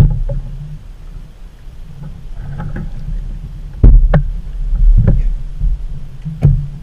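Knocks and thumps on a bass boat's deck, with several loud ones in the second half, over a steady low rumble.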